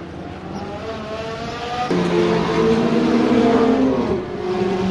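Ferrari engines running: an engine note climbs in pitch, then about two seconds in the sound switches abruptly to a louder, deeper engine note that holds and creeps slightly higher.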